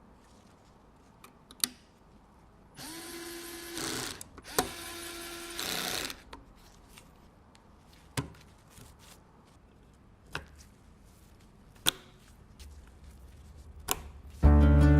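Small electric screwdriver whirring in two short runs of about a second each, the pitch rising as it spins up, among scattered sharp clicks. Music comes in near the end.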